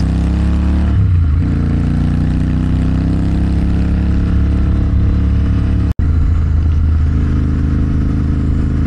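Motorcycle engine running under way. Its note dips and picks up again about a second in, then climbs slowly as the bike gathers speed. The sound drops out for an instant about six seconds in, then the engine runs on steady.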